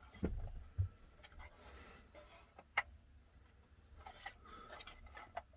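Scattered light clicks and taps of plastic being handled as a van's interior light unit is unclipped and stripped out, with one sharper click about halfway through.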